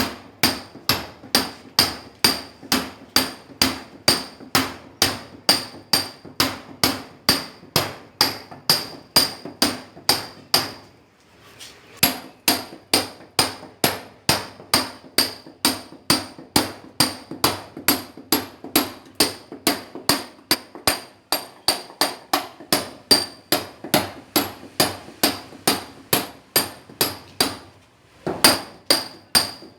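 Hand sledge (marreta) striking a steel chisel in a steady, even rhythm of nearly three blows a second. Each blow has a bright metallic ring. The hammering breaks off briefly about a third of the way in and again near the end.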